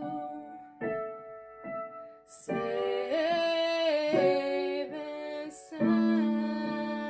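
Slow piano chords struck and left to ring. About two and a half seconds in, a woman's unprocessed voice sings a held note with vibrato over them.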